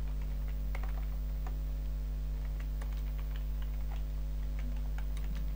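Typing on a computer keyboard: irregular, quick keystroke clicks, over a steady low electrical hum.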